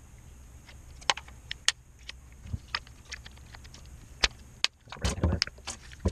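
Scattered sharp clicks and taps of a screwdriver and hands working on a washing machine drain pump's plastic housing, taking off the cover over its coil. The clicks come about a second apart, then cluster into a short clatter about five seconds in.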